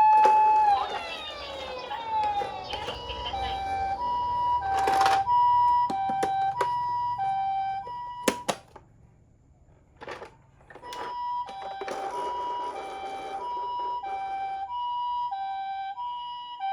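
Toy ambulance's electronic siren. It opens on a steady wail that winds down in pitch, then switches to the Japanese ambulance two-tone 'pee-po', high and low tones alternating about half a second each. The siren breaks off for a moment midway, with a few sharp clicks, then the two-tone resumes.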